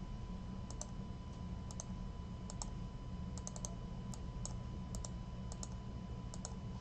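Faint, irregular clicks of a computer mouse and keyboard, short and sharp, over a low steady hum.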